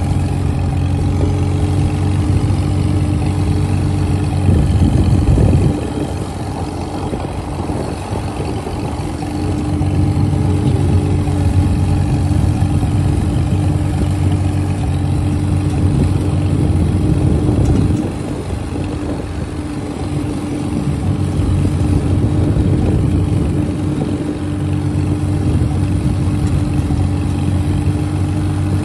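1953 Farmall Super H tractor's four-cylinder engine running steadily as the tractor is driven. The engine note drops off about six seconds in and again at about eighteen seconds, then picks back up.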